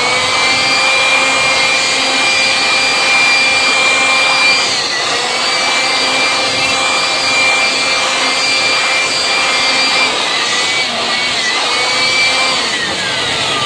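Handheld electric air blower running at full speed with a steady high motor whine and rushing air, blowing dust off a desk fan's motor. Its pitch dips briefly a few times, and near the end it is switched off and winds down with a falling whine.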